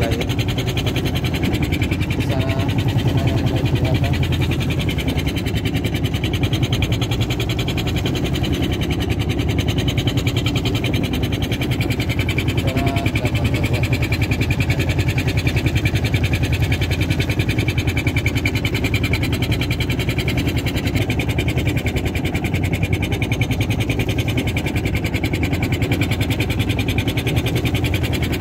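Engine on a tuna-fishing boat running steadily at a constant speed.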